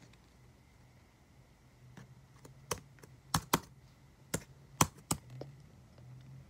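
Typing on a Dell laptop keyboard: a handful of sharp key clicks in an uneven run, starting about two seconds in and lasting about three seconds, with a few fainter taps among them.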